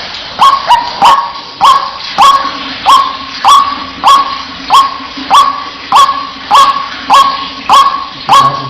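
White-breasted waterhen calling: a steady string of short, sharp, bark-like notes, about one and a half a second, starting a moment in.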